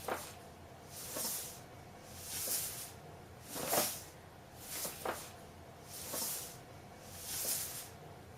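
A pet animal breathing noisily, a rhythmic hissing breath about every 1.2 seconds, in the manner of snoring or heavy sleep breathing.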